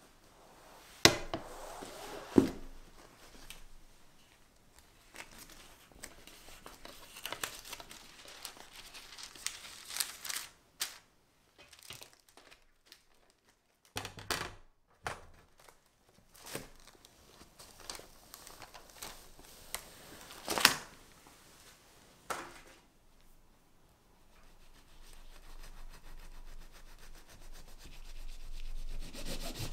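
Metal sheet pans handled with a few sharp knocks, and paper crinkling and rubbing against a baked sponge cake. Near the end, a long knife saws back and forth through the cake's crust to trim the edge, a rasping sound that grows louder.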